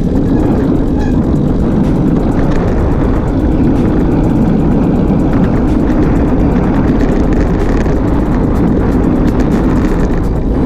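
Wind buffeting the microphone of a handlebar-mounted camera on a road bike moving at speed: a loud, steady low rumble.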